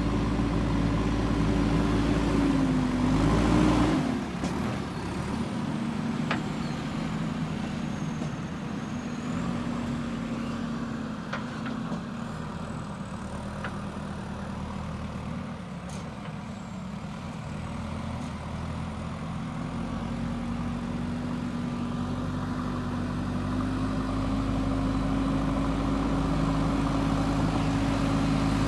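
JCB 3DX backhoe loader's diesel engine working. Its pitch dips and falls about four seconds in, it runs lower and quieter for a while, then it builds back up and gets louder toward the end.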